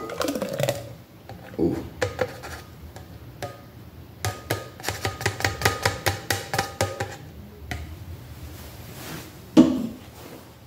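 A plastic blender cup knocked against the rim of a stainless steel tumbler to shake a thick milkshake out: a quick run of taps with a metallic ring lasting about three seconds in the middle, and one louder thump near the end.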